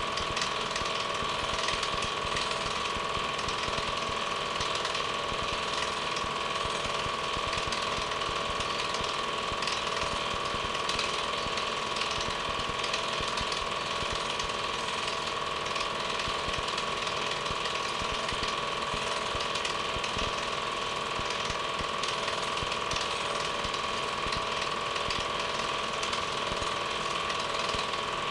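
Home-movie film projector running: a steady, fast mechanical clatter with a constant whirring hum.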